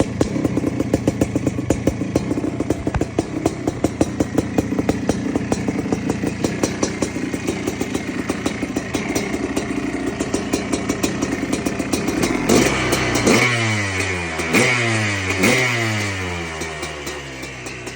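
1992 Yamaha WR500's 500cc single-cylinder two-stroke engine idling with a fast, uneven popping beat, then blipped three times near the end, each rev rising sharply and falling back before settling to a quieter idle.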